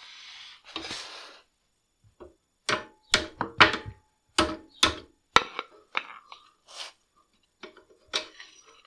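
Two short hisses, then a run of sharp metallic taps and clicks, about a dozen over six seconds, as a hand tool works loose the small pin that holds the parking-brake cable to the frame.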